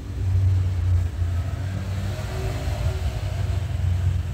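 Electric hand mixer running at full speed with a steady low hum, its beaters whipping cream in a bowl.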